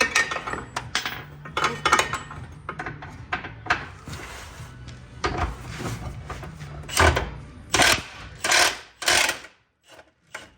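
An impact wrench running in short bursts on a bolt, several rattling bursts in a row, with the loudest few near the end.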